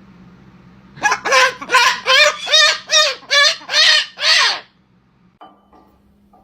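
A parrot giving a fast run of about nine loud squawking calls, roughly two a second, each rising and falling in pitch, then stopping abruptly.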